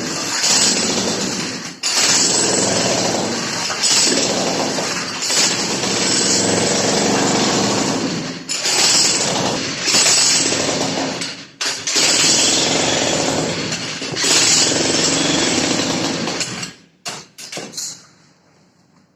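Jackhammer running in long loud runs with a few brief pauses, then stopping near the end after a few short bursts.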